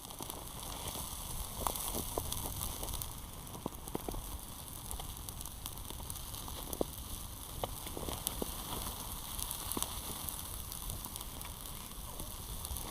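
Campfire burning: a steady hiss with scattered sharp crackles and pops.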